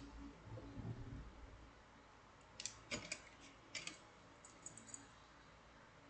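Light clicks and clinks of metal wire puzzles being handled, in a few small clusters from about two and a half to five seconds in, over near silence.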